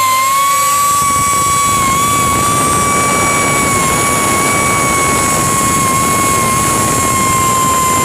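A 2-inch pneumatic air sander running at speed while sanding a bare wooden chair seat: a steady high whine over a rushing noise, its pitch wavering slightly.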